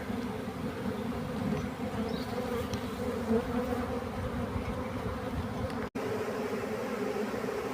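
A swarm of honeybees, a tertiary swarm that has left its hive, buzzing as a steady hum of many wings. The sound cuts out for an instant about six seconds in.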